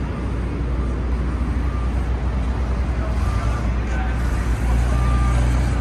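Busy city street traffic noise: a steady low rumble of engines, a little louder near the end, with faint snatches of passers-by's voices.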